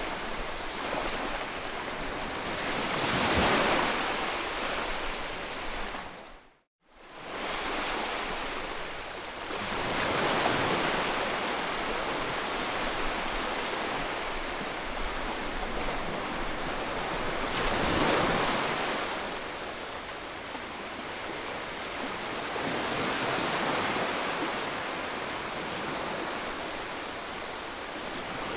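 Loud, steady rushing of water that swells and eases every few seconds, cutting out for a moment about seven seconds in.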